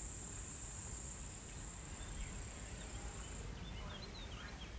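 A cricket-like insect shrilling in a steady, high-pitched buzz that stops about three and a half seconds in. A few faint chirps come near the end, over a low outdoor rumble.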